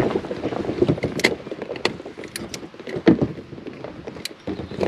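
Irregular knocks and clatter in a small boat, with water noise, as a pike is landed by hand without a net.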